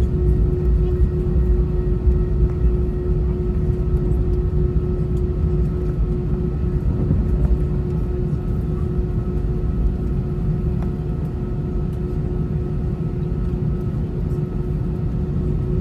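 Airbus A320 cabin noise with the jet engines running: a steady low rumble with a held hum over it.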